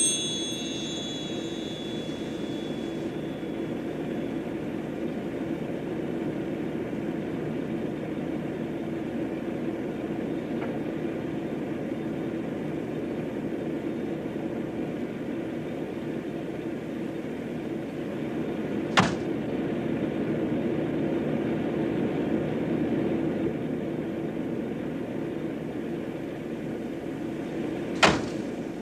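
Steady low mechanical hum. A chiming tone fades out in the first few seconds, and two sharp clicks come, one about two-thirds of the way through and one near the end.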